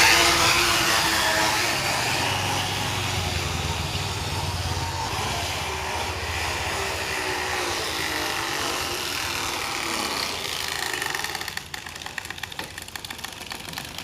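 A plastic water bottle pressed against the spokes of a turning bicycle wheel, rattling fast as a home-made imitation of a Bullet motorcycle's phat-phat. Near the end the rattle drops away into separate clicks that come slower and slower as the wheel loses speed.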